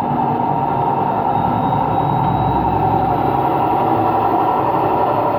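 Empty washing machine running on its rinse-and-spin cycle, a loud steady rumbling drone from bad bearings, which the owner thinks are the drum bearings and likely the motor bearings too.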